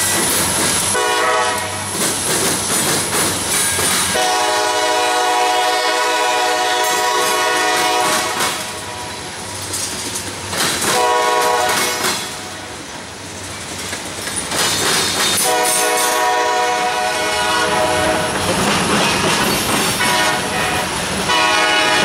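Diesel locomotive horn on a passing freight train, blowing four blasts: short, long, short, long. The locomotive's engine and the train's noise on the rails run underneath, with wheels clattering over the track.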